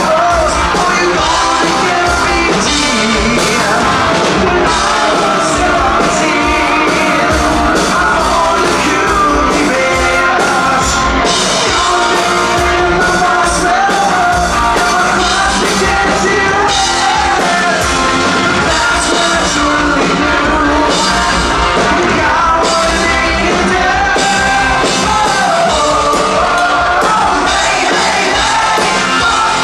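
Glam-metal band playing a song live, with a lead vocal sung over the full band and drums.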